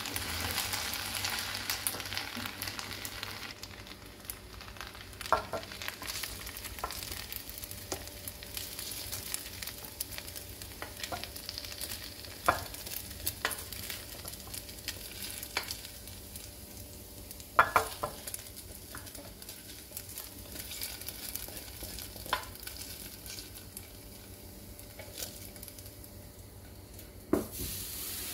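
Pasta shells stirred and scooped with a wooden spoon, with a soft sizzling hiss from the pot that is strongest at the start and eases off after a few seconds. The spoon knocks against the pot or bowl a dozen or so times at irregular moments.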